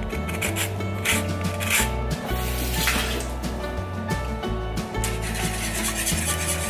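Lemon zested on a handheld metal grater, rasping with each stroke, then a wire whisk beating eggs and lemon juice in a bowl near the end, over background music.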